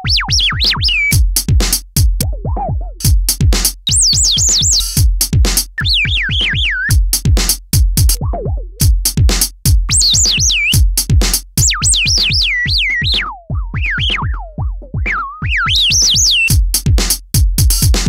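Electronic drum-machine beat run through a Vermona analogue filter set to high resonance. The resonance squeals in quick swooping whistles that rise and fall like bird chirps as the filter is swept by hand, dropping lower for a moment now and then and breaking off between phrases.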